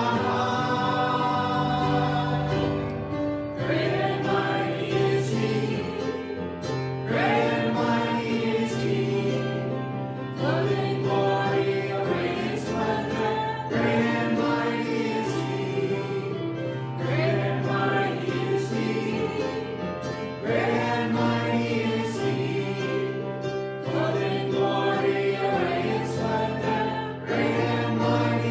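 A church congregation singing a worship song in phrases, with instrumental accompaniment and sustained bass notes under the voices.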